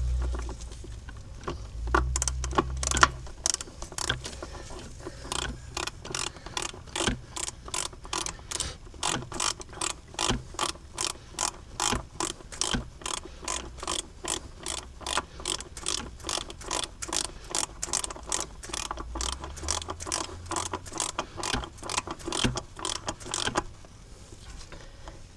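Half-inch drive ratchet clicking in a steady rhythm, about three clicks a second, as it runs a new injection pressure regulator valve in on its threads. The clicking stops near the end.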